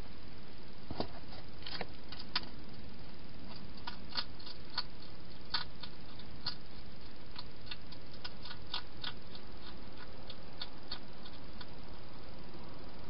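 A hedgehog eating from a bowl inside a plastic feeding box: irregular, crisp clicks of it crunching its food, over a steady hiss.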